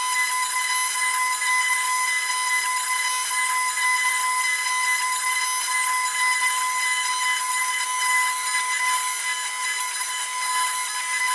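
CNC 2535 mini router's spindle motor running with a steady high whine over a hiss, as its small bit cuts into a wooden board.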